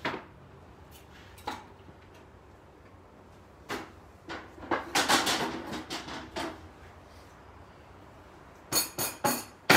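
Kitchen handling clatter: a few scattered knocks, then a busier stretch of bumping and rustling around the middle. Near the end comes a quick run of sharp knocks as a large wooden cutting board is set down on a wooden worktop.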